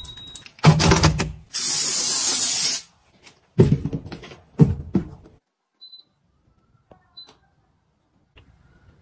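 A string of household handling sounds: a clatter of knocks, a steady hiss lasting about a second, two sharp knocks, then two short faint electronic beeps.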